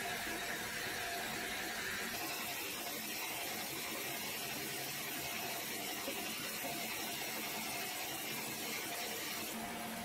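Band sawmill machinery running, a steady even mechanical noise with a faint whine that fades out about two seconds in.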